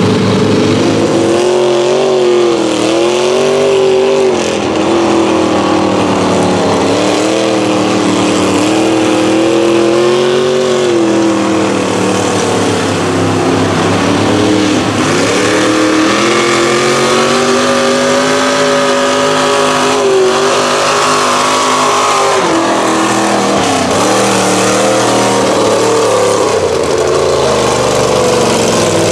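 Mud trucks' engines revving hard as they power through a flooded bog, the pitch swinging up and down over and over.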